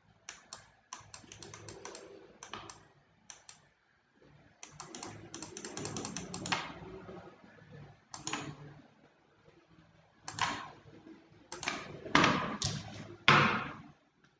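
Clicking and tapping on a computer keyboard and mouse, in irregular bursts of quick clicks, loudest near the end.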